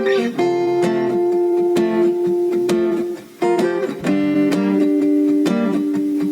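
Background music of plucked and strummed acoustic guitar, sustained notes changing every second or so, with a short break about three seconds in.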